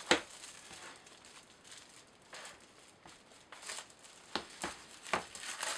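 A shrink-wrapped stack of laser-cut plywood kit sheets being handled and lifted: a sharp knock right at the start, faint crinkling of the plastic wrap, then three light clicks near the end.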